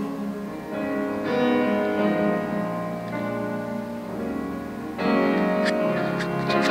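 Live piano playing an instrumental passage of sustained chords, with a fuller, louder chord coming in about five seconds in and a few short bright accents after it.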